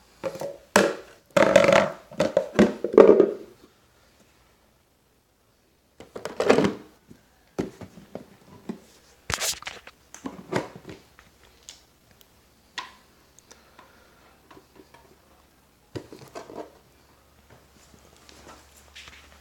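Handling noise of irregular knocks, clunks and rustles, dense and loud in the first few seconds, then scattered clicks and clunks after a short silent gap.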